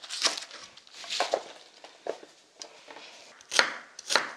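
Kitchen knife chopping green onions and then a white onion on a wooden cutting board. The strikes are separate and uneven, about one every half to one second, and the two near the end are the loudest.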